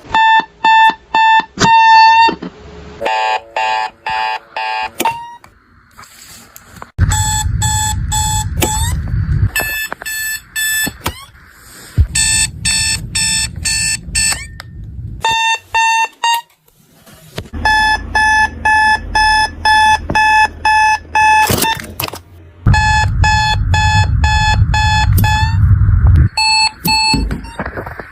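Electronic alarm clock buzzers beeping in pulsed patterns, one alarm after another, with the pitch and rhythm of the beeps changing every few seconds. Several of the alarms beep over a loud low buzz.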